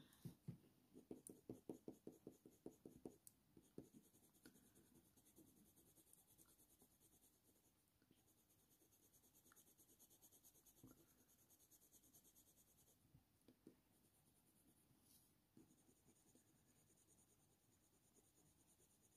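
Faint scratching of a Faber-Castell Polychromos colour pencil (Cold Grey I) in quick light strokes on hot-press watercolour paper, a dozen or so short strokes over the first few seconds, then near silence.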